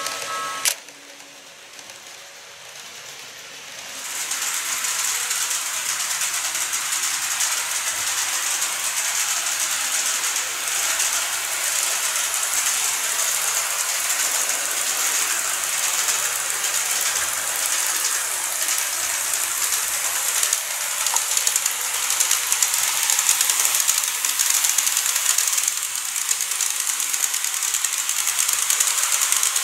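KATO N-scale E531 series model train running on plastic track: a steady high hiss and whir of motor and wheels that comes in about four seconds in and stays steady. Before it, a steady tone cuts off with a click just under a second in, followed by a quieter stretch.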